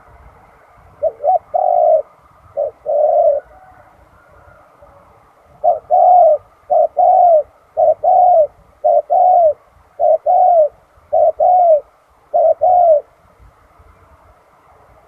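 Spotted dove cooing: a run of low, rounded coos, mostly a short note followed by a longer one, repeated about eight times with a pause of a couple of seconds after the first few.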